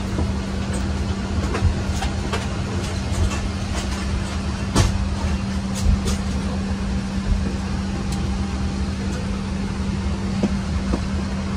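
Steady cabin hum of a Boeing 777-300ER with a constant low drone, with scattered light clicks and knocks as a leather seat's pillow, cushion and seat belt are handled.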